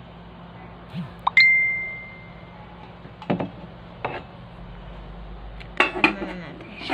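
A single bright ding about a second in, ringing on for about a second, then a few light metallic clinks and a short clatter near the end, typical of a rice cooker's metal pot and lid being handled.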